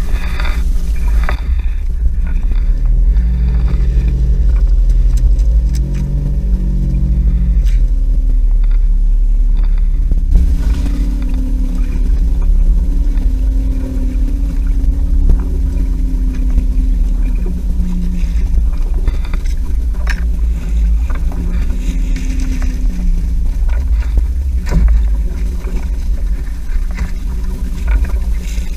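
Small fishing boat's motor running under a heavy, steady low rumble. Its pitch wavers for several seconds before settling, with a few faint knocks from the boat.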